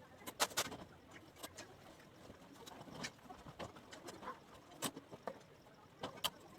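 Steel rebar and binding wire being handled and tied: about a dozen sharp, irregular clicks and clinks, the loudest about half a second in and near five seconds in.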